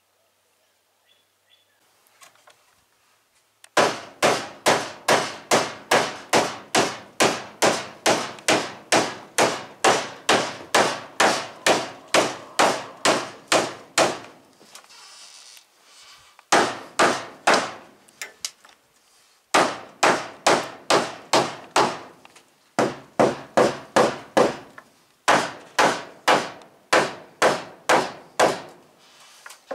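Hammer pounding on a timber post: fast, even blows about three a second, in a long run and then several shorter runs with brief pauses between.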